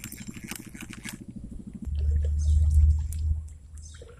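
A passing motorboat's engine running with an even beat while a spinning fishing reel is wound in, its clicks over the top. About two seconds in, a loud low rumble takes over for a second or so, then fades.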